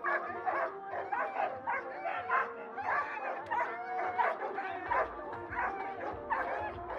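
Several dogs barking over and over, the barks overlapping, with music playing underneath.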